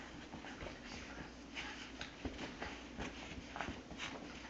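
A basenji puppy and a Shih Tzu–Yorkie mix play-wrestling on carpet: faint, irregular scuffling with short dog sounds scattered through.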